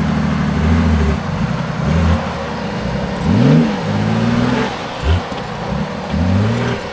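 Off-road vehicle's engine revving in repeated blips, its pitch climbing and dropping several times, with a quick rise about three seconds in and another near the end.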